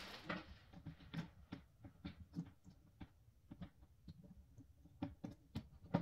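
Irregular small clicks and knocks, roughly two a second, from hand work on a cabinet as its black door handles are taken off to be swapped, with a louder knock near the end.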